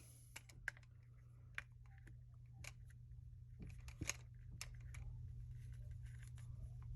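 Faint, scattered small clicks and taps from handling a Glock 43 pistol, one somewhat sharper click about four seconds in, over a low steady hum.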